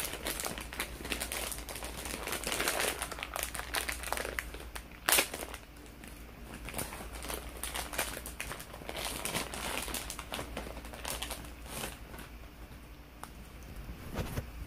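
Plastic packaging crinkling and rustling as it is handled, dense for the first few seconds. A single sharp click comes about five seconds in, followed by lighter, scattered crackles.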